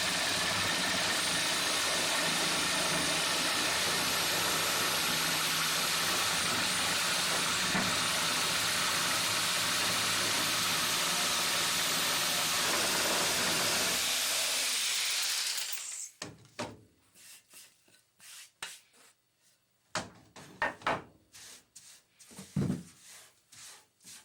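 Woodworking lathe running as a tool cuts the spinning wood, a loud steady noise with a faint high whine, winding down and stopping about fifteen seconds in. Scattered light knocks and clicks follow.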